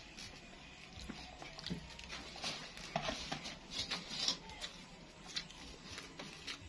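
Close-up chewing of a mouthful of rice, with wet lip-smacking and many small irregular mouth clicks, and soft sounds of fingers gathering rice on the plate.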